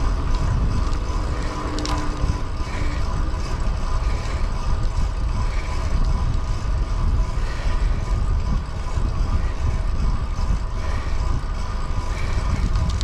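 Wind buffeting the microphone during a fixed-gear bicycle ride, a steady low rumble.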